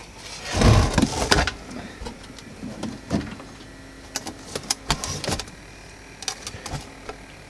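Handling noise from a metal cassette-amplifier chassis being tipped onto its side and turned over: a loud rubbing bump about a second in, then scattered light knocks and clicks.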